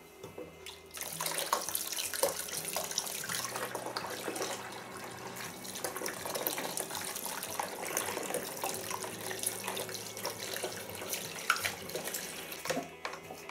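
Tap water running into a sink, with scattered small knocks; it starts about a second in and stops shortly before the end.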